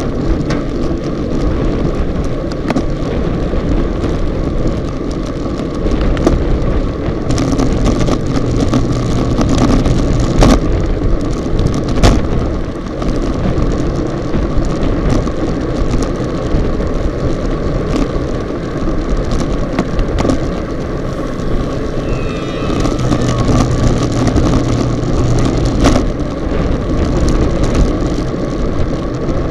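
Wind rushing over the microphone of a bike-mounted Contour+ action camera as the bicycle rides at speed in a racing bunch, with frequent sharp knocks and rattles from the poorly stabilised camera mount.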